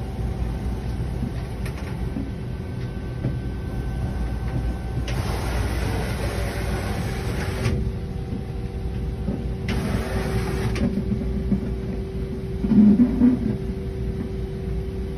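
Doosan Puma GT2100 CNC lathe running: a steady hum with a steady whine, two bursts of hiss about five and ten seconds in, and a short louder burst near the end.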